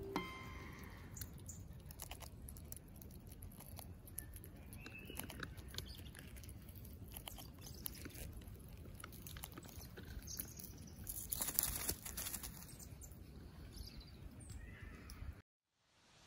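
Grey squirrel gnawing a peanut close to the microphone: many small crunches and clicks over a low outdoor rumble. A louder stretch of rustling noise comes about eleven seconds in, and the sound stops abruptly about a second before the end.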